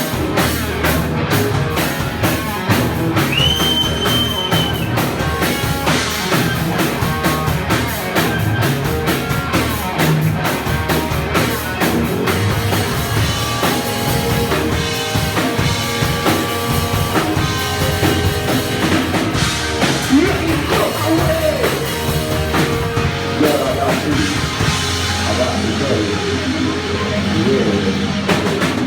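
Rock band playing loud, with a full drum kit driving the beat over guitars. A short high steady tone sounds for about a second and a half around three seconds in.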